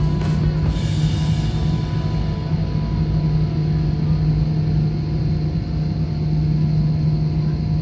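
Airbus A320 jet engines running, a steady low rumble heard inside the passenger cabin.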